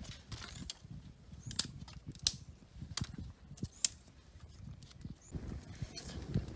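Dry twigs and sticks cracking and rustling as they are handled and laid on a campfire's embers, with several sharp snaps. About five seconds in, the fire takes hold and burns with a low, steady crackle.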